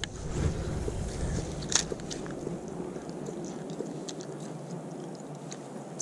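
Wind rumbling on the microphone while a spinning rod and reel are handled, with light ticks and one sharper click just under two seconds in.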